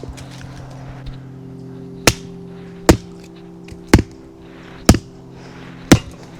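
Wood being chopped or split for kindling: five sharp strikes, about one a second.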